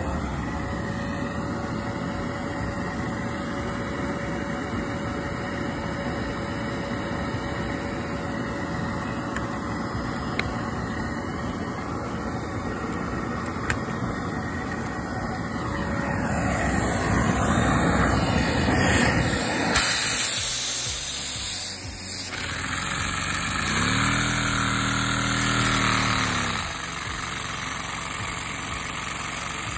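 Household vacuum cleaner running steadily, its suction hose driving a LEGO vacuum engine. About halfway through the sound grows louder and changes, with a lower pitched hum for a couple of seconds near the end before it settles back to a steady drone.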